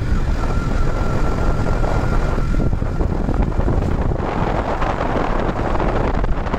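Wind rushing over the microphone of a moving Yamaha R15M motorcycle, with the bike's engine running underneath. The rush grows stronger about four seconds in.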